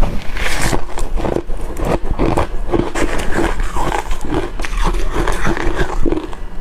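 Close-up crunching of crushed and shaved ice being bitten, a dense run of crunches one after another.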